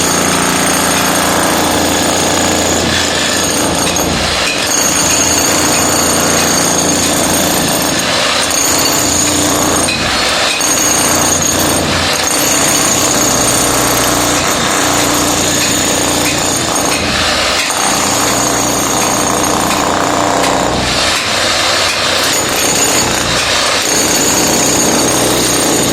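Electric hammer drill (demolition hammer) running continuously as it chisels and breaks up a concrete floor, with a rapid hammering clatter that shifts slightly every few seconds as the bit works.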